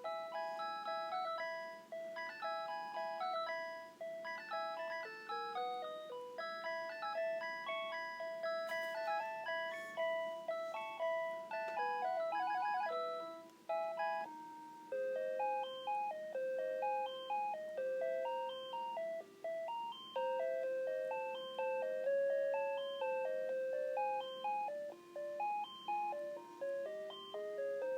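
Panasonic KX-TGA931T DECT cordless handset playing its melody ringtones. One tune ends about halfway through, and after a short gap a second melody begins, repeating a short phrase about every second and a half.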